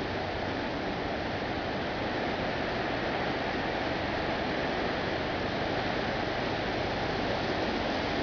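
Steady rushing noise of an oncoming storm, an even hiss that does not let up.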